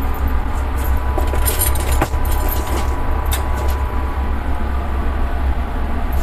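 Mustard seeds heating in hot oil in an aluminium kadai, giving a few sharp crackles as the first seeds begin to pop: a cluster about a second and a half to two seconds in, and another just past three seconds. A steady low rumble runs underneath.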